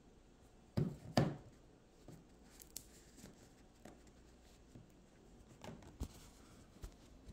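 Light handling noise: two soft knocks about a second in, then scattered small taps and rustles.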